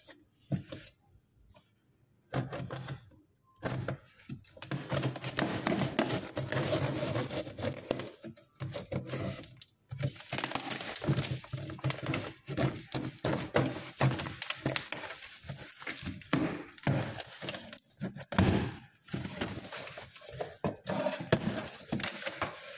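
Packing tape on a cardboard box being slit with a box cutter and torn away, then the cardboard flaps pulled open: irregular crackling, tearing and scraping that comes and goes.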